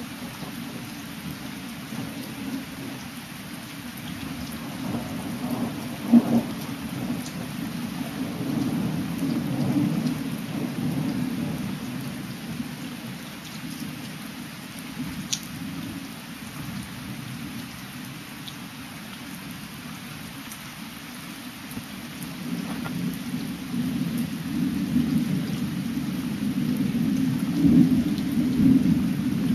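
Thunderstorm: steady rain with thunder rolling twice, first about five seconds in with a short sharp crack, then a longer rumble that builds through the last several seconds and is loudest near the end.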